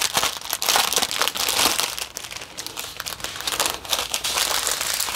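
Thin plastic packaging, the small bags of diamond-painting drills, crinkling and rustling as it is handled and opened. The crackle is continuous and uneven.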